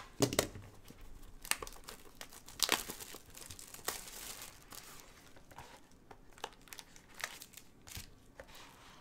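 Wrapping crinkling and tearing as a sealed Panini Gold Standard football card box is opened and its gold-wrapped pack is handled. Irregular sharp rustles and taps, busiest in the first four seconds and sparser after.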